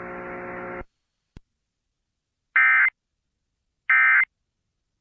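Emergency Alert System end-of-message data tones: two identical short, buzzy bursts of the SAME digital code, about 1.3 s apart, signalling that the alert message has ended. Before them a low steady hum from the radio feed cuts off under a second in, followed by a single click.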